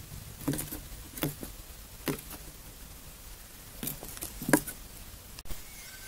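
A caught songbird moving about in a small wooden box with a sawdust floor: a handful of short, scattered knocks and scuffles as it hops and flutters against the walls and glass, the loudest about four and a half seconds in.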